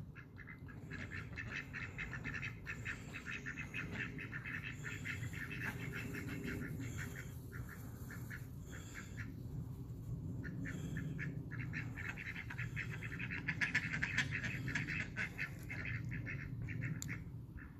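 Ducks quacking in rapid runs that come and go, over a steady low background hum.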